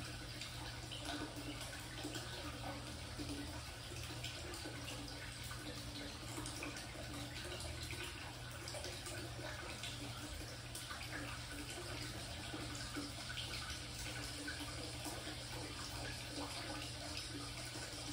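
Hot spring water pouring from a bamboo spout into a stone bath, a steady trickle and splash that does not change.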